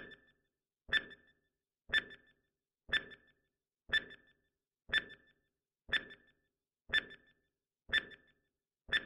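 Countdown timer sound effect: a short, bright tick with a brief ring after it, repeating once a second.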